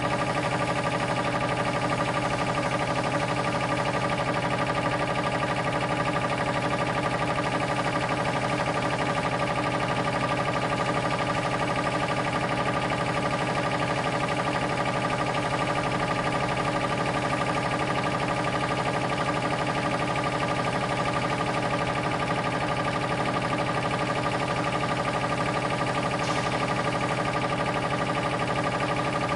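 Compressor motor running steadily, a constant hum made of several fixed tones that hold the same pitch and level.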